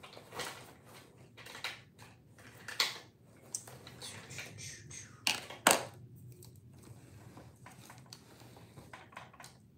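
Small items being handled at close range: scattered clicks, taps and rustling, with sharper knocks about three seconds in and twice around five and a half seconds in.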